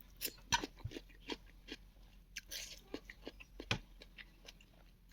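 Close-up mukbang eating sounds: chewing, lip smacks and wet mouth clicks at an uneven pace, with a few louder bites, the strongest about half a second in and near the end.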